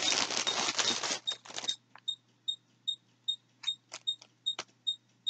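Crinkling and rustling as yarn and its packaging are handled, ending a little under two seconds in, with a few sharp clicks after. Then a faint, high beep repeats about two and a half times a second.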